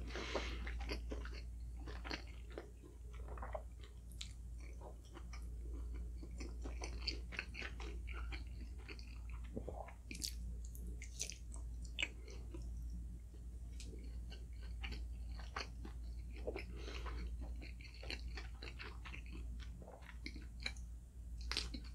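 A person chewing and biting breakfast food, with many short, sharp mouth and bite clicks scattered throughout.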